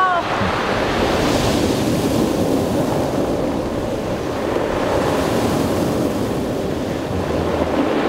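Sea waves breaking and washing up over a pebble beach, a steady surf that swells briefly about a second in.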